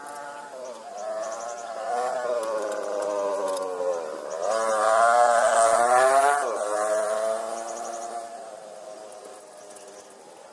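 A motorcycle passing by, its engine note rising and wavering in pitch, loudest about five to six seconds in, then fading away. Faint insect chirps repeat in the background.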